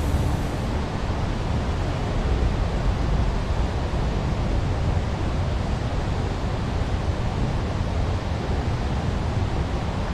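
Steady rushing of a waterfall cascading over rock, a dense even noise heaviest in the low end.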